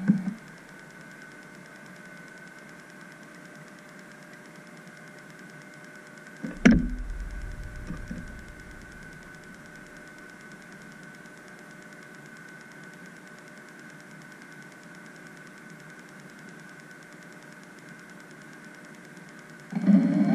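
Steady faint hiss with a thin, steady high tone. About six and a half seconds in comes a single sudden low thump that dies away over a second or so.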